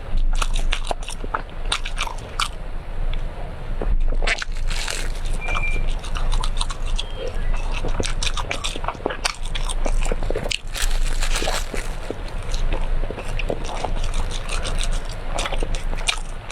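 Close-miked eating of brown sugar cake: biting and chewing, with a steady run of irregular small clicks and mouth sounds.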